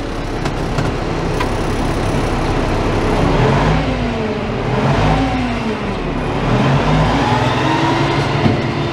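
1986 GMC General dump truck's diesel engine revving up and down several times with the PTO engaged, driving the hydraulic pump that starts raising the dump bed.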